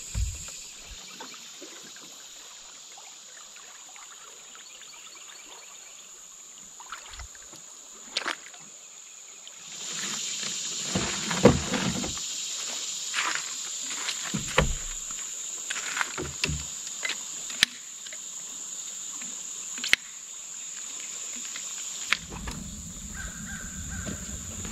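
Insects buzzing steadily in a high, even band. About halfway through, a run of knocks and clunks as camping gear is lifted out of an aluminium canoe onto a gravel bank.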